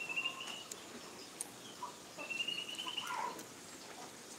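A bird calling twice with high, thin whistled notes, faint. The second call is held for about a second and then falls away in pitch.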